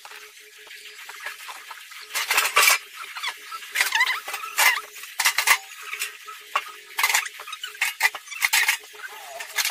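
Stainless-steel deep fryer parts and wire baskets being handled during unpacking: irregular bursts of metal clinking and rattling, mixed with cardboard packaging being moved.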